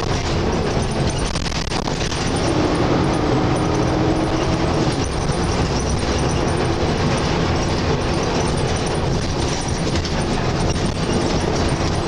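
Volvo B7TL double-decker bus's turbo-diesel engine running under way, heard from the upper deck, with the loud vacuum-cleaner-like turbo whine that enthusiasts call a 'hoover' over heavy engine and road noise. The whine is strongest a few seconds in.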